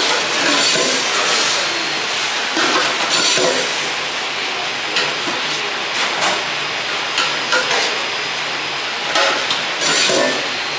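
Metal serving spoons and tongs clinking and scraping against stainless steel food pans at a restaurant serving line, in short scattered clatters over a steady background hiss of kitchen noise.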